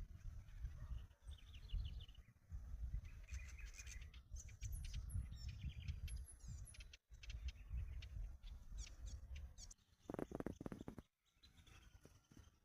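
Songbirds chirping and trilling, with a low wind-like rumble on the microphone. Near the end comes a louder, lower call lasting about a second.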